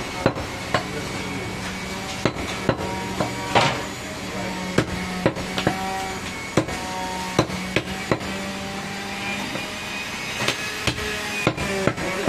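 Butcher's cleaver chopping goat meat and bone on a chopping block, sharp chops at an uneven pace of about one or two a second, over a steady low hum.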